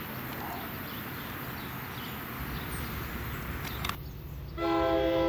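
Steady outdoor hiss, then after a sudden cut a train's Nathan K5LA five-chime air horn starts near the end, sounding a loud multi-note chord.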